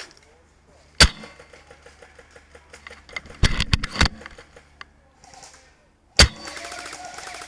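Tokyo Marui VSR-10 spring airsoft sniper rifle firing, a sharp crack about a second in and another about six seconds in, with a quick cluster of clacks between them. After the second shot comes a continuous rapid rattle.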